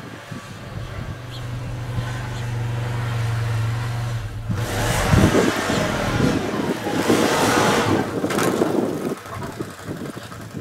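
ATV (four-wheeler) engine running steadily and growing louder, then revving as the quad churns through snow, with a rushing spray of snow and tyre noise loudest from about halfway until near the end before easing off.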